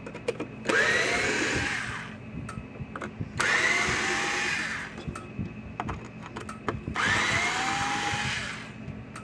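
Cordless electric screwdriver backing out Phillips screws from a circuit board: three bursts of running, each a second and a half or so long, each starting with a rising whine as the motor spins up. Light clicks and handling noises between the bursts.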